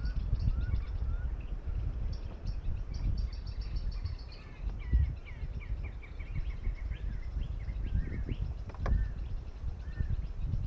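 Several wild birds calling: short rising whistled notes, a fast high trill and a run of chirps. Under them runs a steady low rumbling noise.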